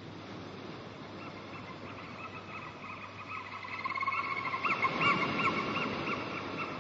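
A repeated warbling animal call, high and clear, over an even rushing hiss that grows a little louder about four seconds in.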